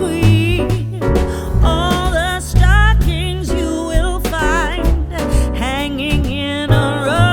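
Background music: a pop song with a sung vocal melody over bass and a steady beat.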